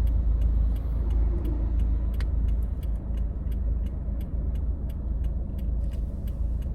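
Steady low road and engine drone inside the cabin of a moving 2010 Toyota Corolla.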